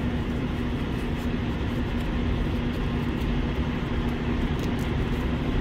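Semi truck's diesel engine idling steadily: a constant low hum and rumble, with a few faint clicks of handling near the end.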